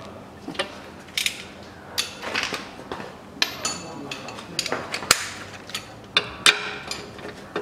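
Ratchet wrench and socket working the bolts of a Chevrolet Cruze's rear lower engine mount, the new mount being bolted up: irregular metal clicks and clinks, with one ringing clink about three and a half seconds in.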